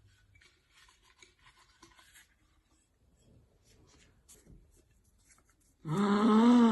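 Faint rustling and rubbing of paper slips being handled in a jar. Near the end, a person's voice breaks in with a long, drawn-out vocal sound.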